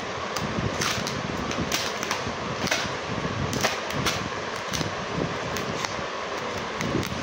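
Hands handling a cardboard delivery box and its packaging: scattered short taps, clicks and crinkles over a steady rushing background noise.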